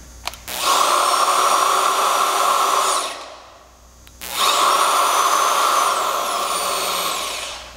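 AGP PF8 press-fitting tool's 550-watt electric motor running through one ram cycle: a click, then a steady whine of about two and a half seconds as the ram drives out. After a pause of about a second, the motor runs again for about three seconds as the ram returns on its own at the set pressure, its pitch dropping as it winds down at the end.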